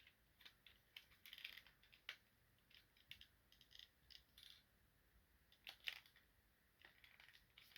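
Faint scattered clicks and scrapes of hard plastic toy parts being handled and pressed together, with a sharper click about six seconds in.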